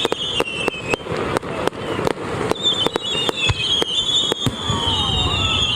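Fireworks going off in a rapid string of sharp bangs, several a second, with a high wavering whistling tone over them that drops out briefly in the middle and comes back.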